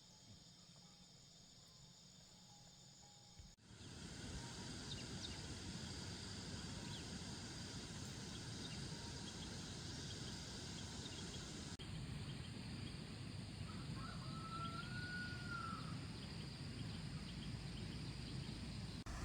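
Outdoor lakeside ambience: a steady hiss of insects and background noise that jumps abruptly louder a few seconds in and shifts again about two-thirds through, with one short whistled bird call rising and falling near the end.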